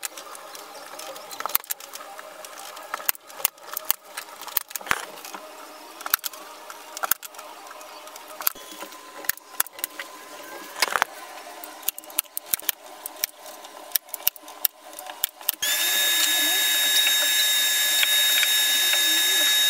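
A hand staple gun fired again and again into a wooden frame, sharp snaps at irregular intervals. About three-quarters of the way through, a vacuum cleaner switches on and runs steadily with a high whine.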